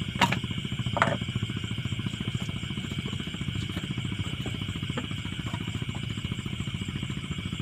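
Portable butane gas stove burning steadily under a steaming pot of liwet rice, a constant rumbling hiss. Two short clinks of dishes come about a quarter second and one second in.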